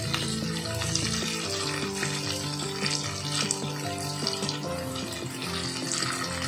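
Tofu cubes sizzling as they shallow-fry in a little oil in a pan, with a few light clicks as chopsticks turn them. Background music with held notes plays underneath.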